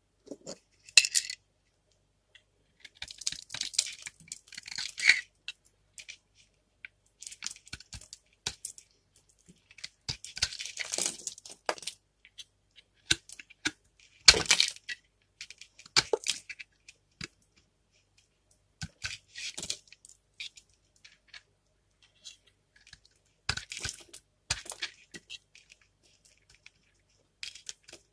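Utility knife cutting into a hard, dry bar of dark Vesna soap, shaving off brittle flakes: crisp scraping, crunching cuts in irregular bursts a second or two apart, with an occasional sharp crack.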